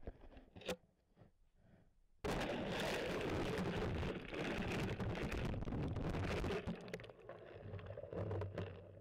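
Camera going down through a hole in the ice into the water: a few faint knocks, then about two seconds in a sudden, loud, muffled rush of water sloshing against the camera housing, which eases off over the last couple of seconds.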